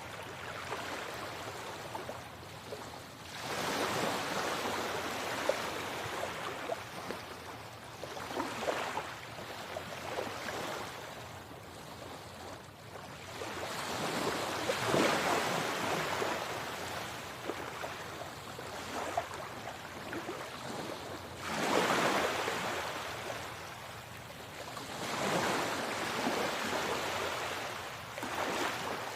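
Sea waves breaking, a louder surge of surf every five to seven seconds with a steady wash between.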